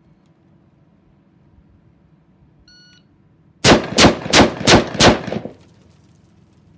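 A shot timer beeps once, and just under a second later a stock PTR-91 semi-automatic rifle in .308 Winchester fires five rapid shots, about three a second, each with a short ringing tail.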